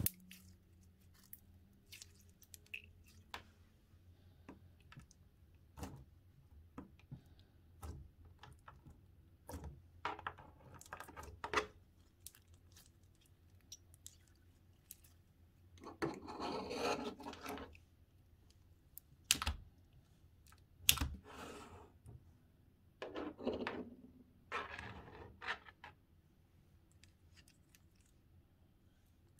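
Stiff, clear green slime being squeezed and stretched by hand, giving quiet, scattered small clicks and pops, with three longer crackly squishing stretches in the middle.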